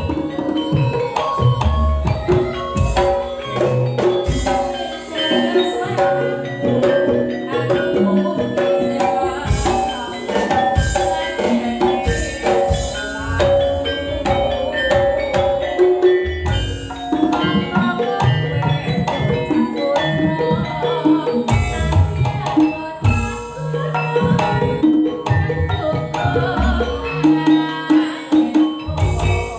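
Campursari music playing: struck gamelan metallophones ringing out melodic patterns over kendang hand-drumming and a steady bass.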